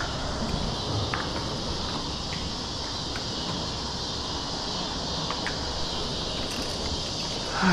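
Steady outdoor background noise around a boat on moving water: an even hiss with a low rumble from wind and current, and a few faint clicks from handling bait and tackle.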